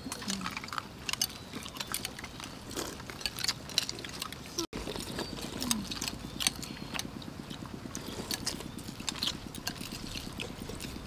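Metal spoons clicking and scraping against ceramic bowls, with soft mouth sounds of people eating a soupy dessert.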